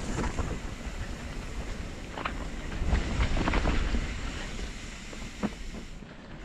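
Mountain bike rolling over a dirt trail: tyre rumble with sharp rattling clicks and knocks from the bike over bumps, and wind on the microphone. The rumble swells loudest about halfway through.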